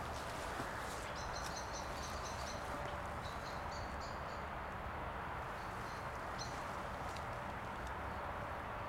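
A bird singing a run of short, quickly repeated high notes in the first half, then one brief phrase later, over steady background noise.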